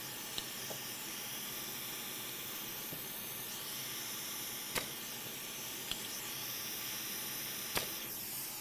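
Hot air rework station blowing a steady hiss as it heats the solder in a circuit board's through-holes to melt it for removal, with a few faint clicks.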